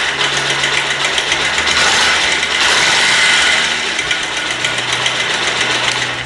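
Bajaj Pulsar single-cylinder motorcycle engine idling with its timing chain adjuster port open: a loud hissing clatter of rapid ticks from the cam chain. The adjuster screw inside is being tightened with a flat screwdriver to take up the chain slack behind the engine's tik-tik knocking.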